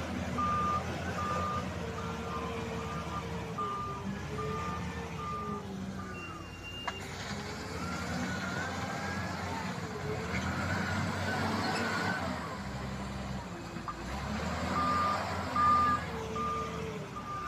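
Heavy diesel excavator engines running, with a wavering hydraulic whine that rises and falls. A backup alarm beeps evenly, about once every three-quarters of a second, for the first five seconds and again near the end.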